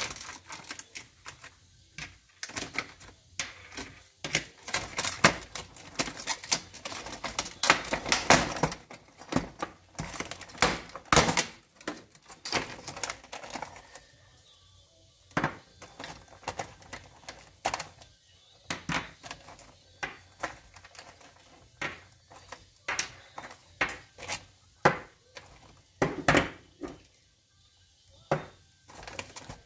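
Stiff clear plastic blister packaging crackling as it is pried open, among irregular sharp clicks and clinks of small metal air-hose fittings being pulled out and set down on the bench.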